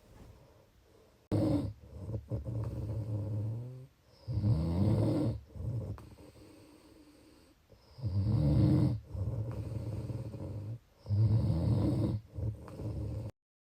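Snoring: a series of long, low-pitched snores in breath-length stretches, with a pause of about two seconds midway. The sound cuts off abruptly near the end.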